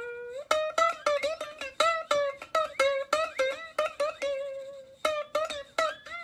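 Background music: a quick plucked-string melody of rapid repeated notes.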